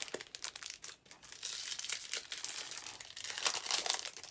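Crinkling and tearing of a trading card pack's foil wrapper as it is torn open and crumpled, a dense run of quick crackles that gets busier from about a second and a half in.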